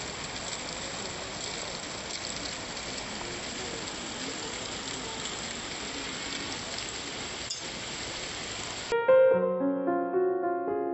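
Steady rushing hiss of fountain water spraying, with a single click about seven and a half seconds in. About nine seconds in it cuts off abruptly and gentle piano music starts.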